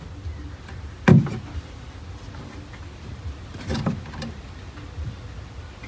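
A loud dull thump about a second in, then softer knocks around four seconds in, over a low steady hum.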